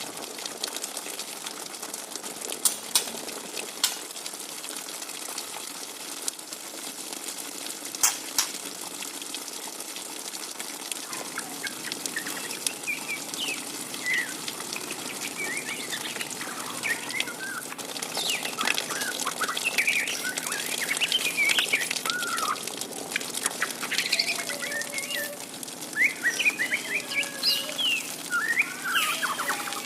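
Juvenile white-rumped shama twittering ('ngriwik'): quick, short chirps and chattering notes that set in about twelve seconds in and grow busier toward the end. Before the chirps there is a steady hiss with a few sharp clicks.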